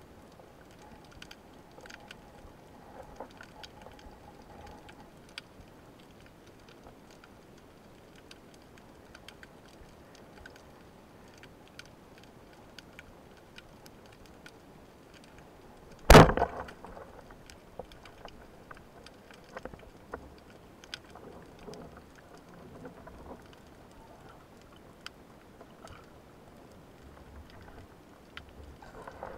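Underwater, a band-powered speargun fires about halfway through: one sharp, very loud crack with a short rattle after it. Faint scattered crackling clicks of the sea fill the rest.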